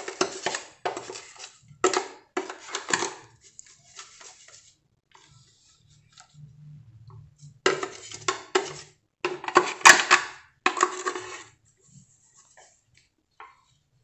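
Kitchenware clattering on a stainless-steel sink counter as dishes, utensils and a plastic blender jar are handled. The clatter comes in two spells: one over the first three seconds, and another from about eight to eleven seconds with a sharp knock near its middle.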